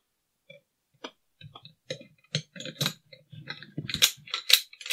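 Small metal rifle parts clicking and knocking as the gas-piston assembly of a Caracal CAR816 A2 is handled and fitted back together: scattered single clicks at first, then a quicker run of sharper clicks about four seconds in.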